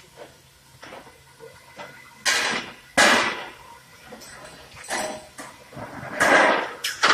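Case erector and side-loading case packer cycling: about five short bursts of hissing noise at uneven intervals, with clacks and knocks in between.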